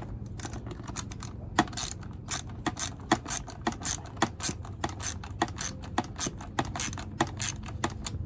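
Ratchet wrench clicking in quick, uneven strokes as a socket screw is turned and snugged up during e-bike assembly.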